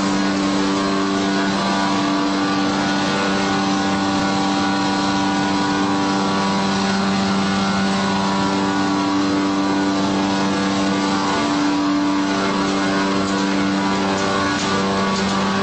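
Facial tissue converting machinery (log saw and box packing line) running steadily: an even mechanical hum with several held tones over a hiss, and light clicks near the end.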